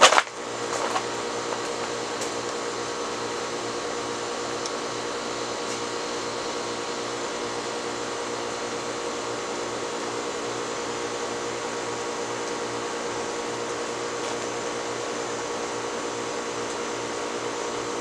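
Southern Fan Co. Tara ceiling fan, running on a replacement motor taken from a Homestead Whisper fan, humming steadily as its blades come up to speed. A sharp click sounds right at the start.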